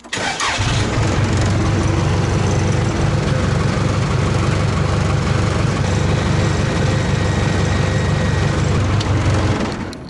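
Case backhoe's diesel engine started up: it catches with a brief rising rev about half a second in, then idles steadily and stops just before the end.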